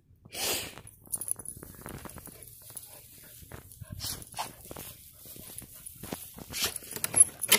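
Two dogs on a tandem leash moving about in grass: irregular scuffling, rustling and sharp clicks, with a loud burst about half a second in and the loudest clicks near the end.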